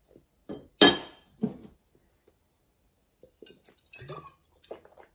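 A sharp, ringing clink of glass about a second in, then a softer second clink half a second later. Near the end come faint small sounds of drinking from a glass bottle.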